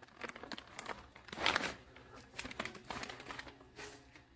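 Plastic toy packaging crinkling and rustling in several irregular bursts as the toys are handled, the loudest about a second and a half in.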